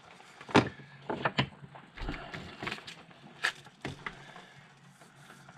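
Handling noise from a nylon knife sheath: a series of sharp clicks and knocks with light rustling as a fixed-blade knife is worked loose and drawn out, with one dull thump about two seconds in.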